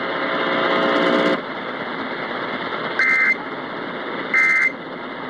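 Emergency Alert System end-of-message data signal over AM radio static hiss: two short screechy bursts of data tones, each about a third of a second and about a second and a half apart, marking the end of the relayed weather warning. A steady buzzy tone sounds for the first second and a half.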